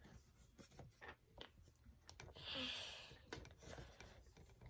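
Faint plastic clicks and creaks as a ring light is twisted by hand onto its tripod stand's screw mount, with a brief soft rustle about two and a half seconds in.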